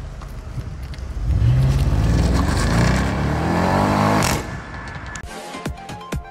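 Audi RS6 Avant's twin-turbo V8 accelerating away, its pitch rising steadily for about three seconds before the sound drops away suddenly. Intro music with a beat starts near the end.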